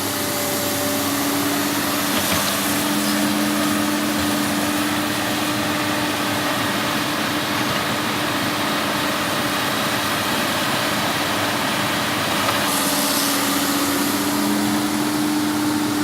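A diesel engine running at a steady speed, with an even hiss over it and no change in pitch or level.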